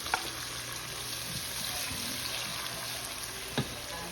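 Chopped onions sizzling steadily in hot oil in a saucepan, with a short click near the start and a single sharp knock near the end.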